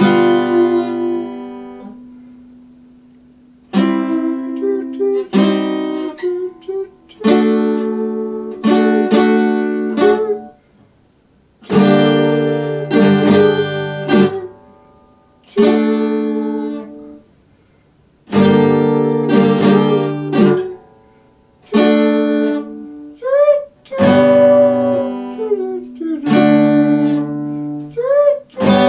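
Epiphone steel-string acoustic guitar played in strummed chords. Each chord rings out and fades, with short pauses between them.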